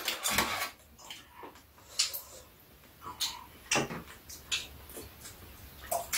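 Metal chopsticks and spoons clicking and tapping against bowls while eating, in short, irregular light clicks.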